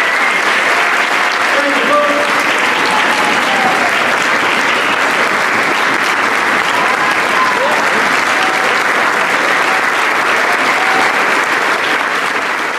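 Audience applauding steadily, with a few cheers rising over the clapping.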